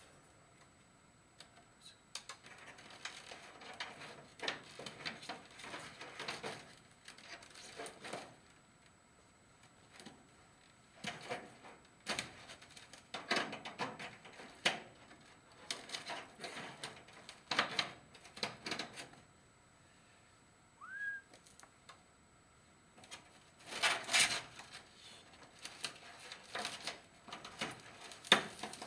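Pliers working chicken wire against foam insulation board: irregular bursts of scraping, crinkling and clicking with quiet pauses between. One short rising squeak about two-thirds of the way in.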